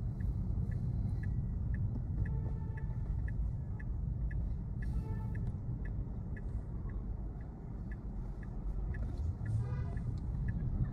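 Low road and tyre rumble inside the cabin of a moving Tesla electric car, with the turn-signal indicator ticking steadily about three times a second.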